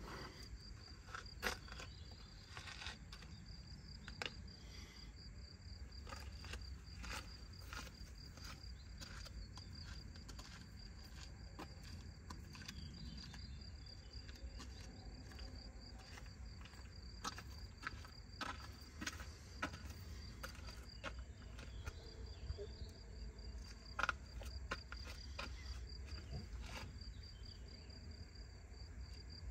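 An insect chirring: a steady, high, faintly pulsing trill that runs on without a break, over a low rumble, with scattered light clicks, the sharpest about 24 seconds in.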